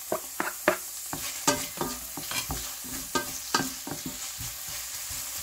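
Diced onion and garlic sizzling in hot oil in a stainless steel frying pan as they are sautéed, with a utensil stirring them and repeatedly scraping and clicking against the pan.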